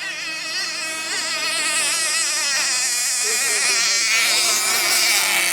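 Racing outboard motors running on the water, their high whine wavering up and down as the revs change, with a rushing hiss growing in the second half.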